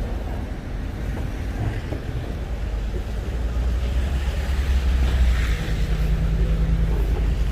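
Street traffic: a vehicle passing close by, its low engine rumble and tyre hiss swelling to a peak about five seconds in.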